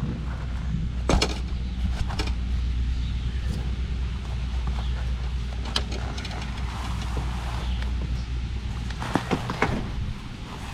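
Steady low engine-like hum, with a few sharp knocks and clatters over it, the last cluster near the end as the hum fades.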